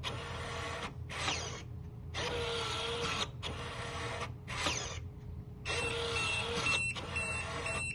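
Motorised keypad deadbolt running its bolt motor in repeated short runs with brief pauses, the lock cycling back and forth without completing: the bolt is not fully closing because the door needs pulling in to line up with the strike. Near the end the keypad starts a string of rapid, high-pitched warning beeps.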